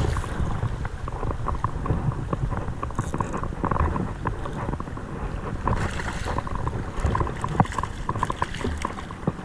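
Flowing creek water with wind buffeting the microphone, and many short, irregular splashes and clicks scattered through it.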